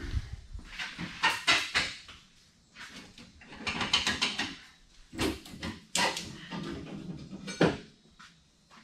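Hand tools undoing the rear leaf-spring shackle bolts of a one-ton Chevy van: several bursts of rapid metallic clicking and clanking.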